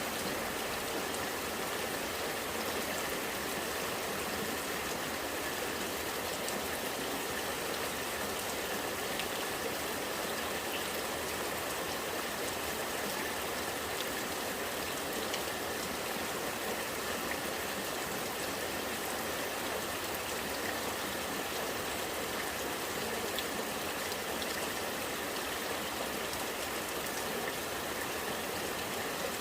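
Rainwater running and gurgling steadily, with raindrops falling in scattered light ticks.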